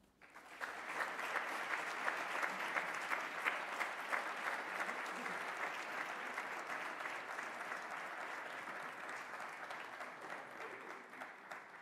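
Audience applauding, many hands clapping together. It starts about half a second in, holds steady and dies away near the end.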